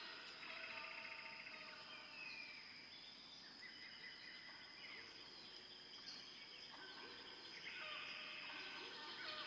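Faint birds chirping in the background: short calls and a trill, over a steady high-pitched whine.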